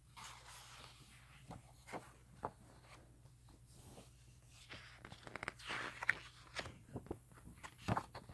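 Faint handling of a book's paper pages: rustling and sliding paper with scattered small taps and clicks, busiest a little past the middle, with a sharper knock near the end, over a steady low hum.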